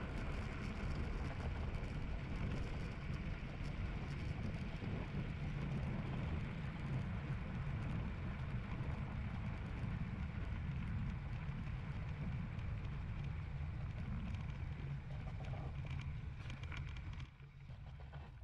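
Steady low rumble of the 1948 Vincent motorcycle rolling slowly across the dry lakebed, with wind buffeting the handlebar camera's microphone. The sound drops off sharply about a second before the end.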